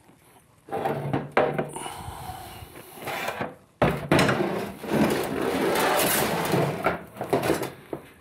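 Steel parts of a 68RFE transmission clunking and scraping as they are handled on a workbench: a clutch drum with the output shaft. There is a sharp knock about four seconds in, then a few seconds of clattering and scraping.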